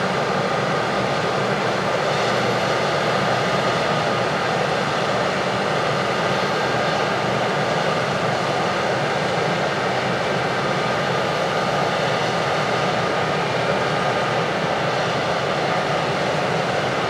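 Heavy farm machinery running steadily at working speed: a constant engine and machine drone with a faint steady whine.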